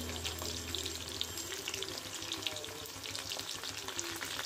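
Potato pieces deep-frying in hot oil in a kadai: a steady sizzle with dense, fast crackling and popping.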